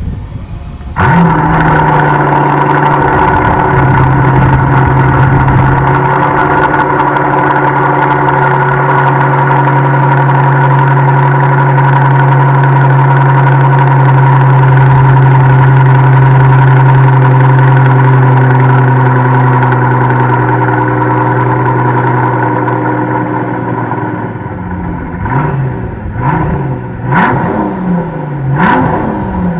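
Mercedes-Benz W221 S600's twin-turbo V12 with a MEC Design stainless steel exhaust, starting from cold. It catches about a second in with a brief flare, then holds a steady fast cold idle. After about twenty-four seconds it settles lower, and near the end it is blipped in several quick revs.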